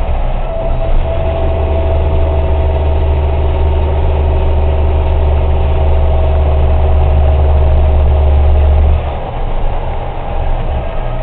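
Engine and road noise inside a military truck's cab while driving on the highway: a loud, steady low drone that eases off about nine seconds in.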